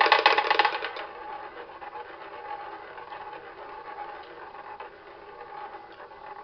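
Tabletop roulette wheel spinning with its ball: a loud, rapid clattering rattle for about the first second, then a fainter steady rolling rattle as the wheel keeps turning.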